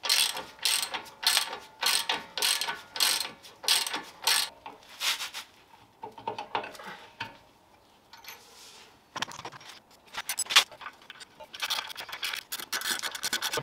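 Ratchet socket wrench clicking stroke after stroke as a suspension bolt is turned: a steady run of strokes at first, scattered ones in the middle, and a quicker run near the end.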